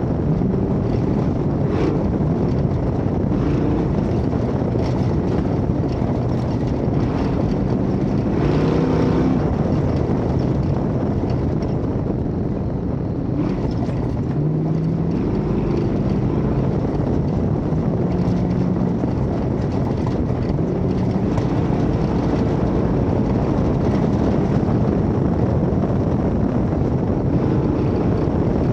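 1972 Ford Bronco off-road race truck's engine running hard under heavy road and wind noise, its revs rising and falling as it is driven.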